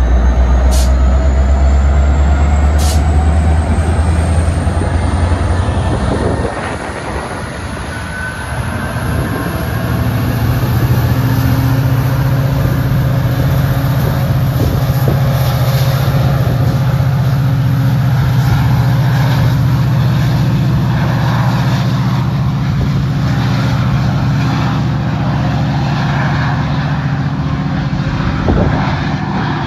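Metra MP36PH-3S diesel locomotive pushing its commuter train away from the platform. The engine runs with a deep tone for the first six seconds, then settles into a steady, higher-pitched run under power from about ten seconds in, while a high whine rises in pitch over the first ten seconds.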